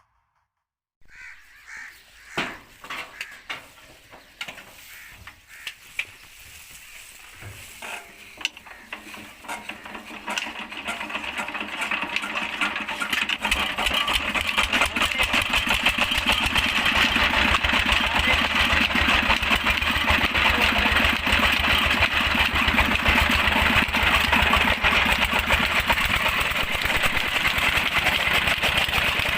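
Scattered knocks and clatter, then a Petter diesel engine comes up to speed about ten seconds in. It then runs steadily with a fast, even beat, driving a chaff cutter.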